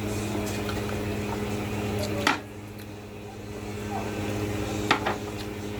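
Close-up eating sounds: chewing and mouth noises with two sharp clicks, over a steady electrical hum that softens after the first click.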